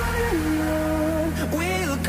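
Background pop song: a singer holding long notes over a soft, sustained backing.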